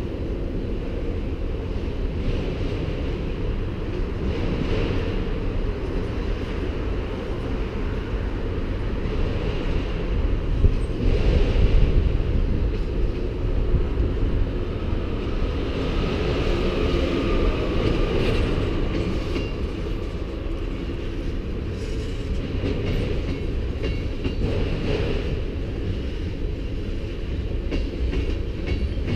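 Freight cars of a CN manifest train rolling past, autoracks and then tank cars: a steady deep rumble of steel wheels on rail, with occasional clanks. It swells briefly about eleven seconds in, and a faint high wheel squeal runs for a few seconds near the middle.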